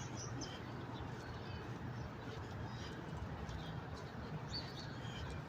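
Outdoor ambience: a steady low hum and background noise, with a few faint, brief bird chirps.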